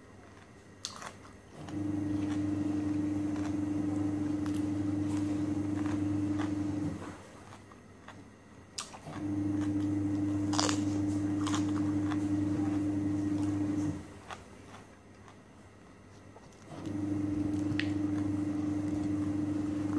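A low, steady hum that runs for about five seconds at a time and cuts out in between, three times over. Over it, a sharp crunch as a raw cucumber slice is bitten, a little past halfway, with chewing and small eating clicks.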